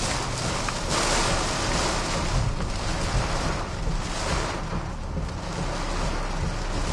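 Hurricane-force wind and driving rain, a loud steady rush of noise that swells and eases in gusts, heard from inside a vehicle with rain striking it.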